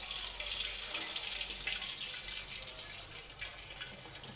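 Hot oil sizzling in a pan around frying wheat-flour gulab jamun balls as they are worked with a ladle. The sizzle is a steady hiss that eases off a little near the end.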